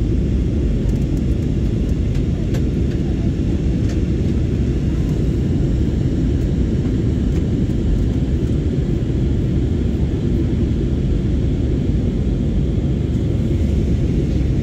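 Steady roar of an Airbus A320-family jet airliner in flight, heard from inside the cabin: a constant deep rumble of engines and airflow that does not change.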